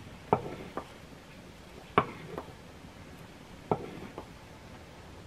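A cooking utensil knocking against a cooking pot: three pairs of short, sharp knocks, a pair about every second and a half.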